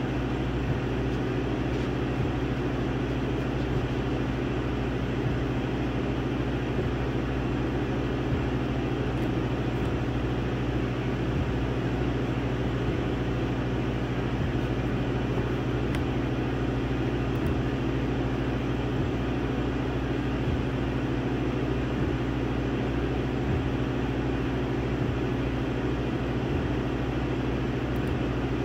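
Laser engraver running while it burns a design into a wooden board: a steady machine hum from its cooling fan and air assist, with a constant low tone, as the stepper motors move the laser head back and forth.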